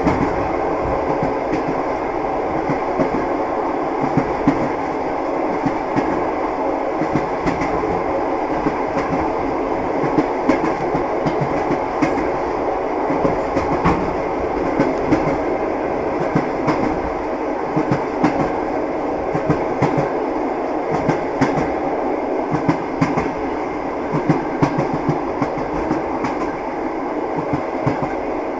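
Moving train's wheels clattering over the rails: a steady rumble with frequent, irregular clicks and knocks, and a faint steady hum.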